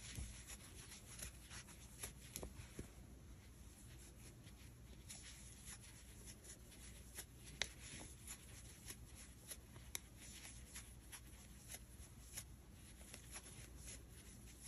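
Very faint, irregular little clicks and rustles of a crochet hook working chunky acrylic yarn while stitches are made, a slightly louder tick now and then.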